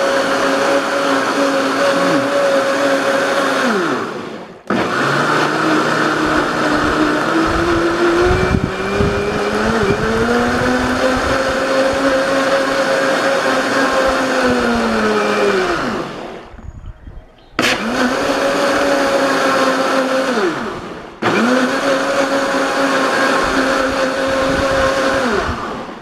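Philco 1400-watt blender motor running with water churning in the jar. It is stopped and restarted three times, each stop a spin-down with falling pitch, and once it rises in pitch as it speeds up. It is running with full strength, its loose motor now fastened tight.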